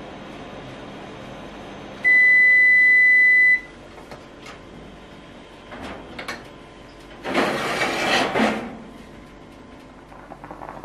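Electric oven humming, then its timer sounds one long beep of about a second and a half as the baking ends, and the hum drops away. A few clicks follow as the oven door is opened, then a loud scraping rush as the metal baking tray is pulled out over the rack.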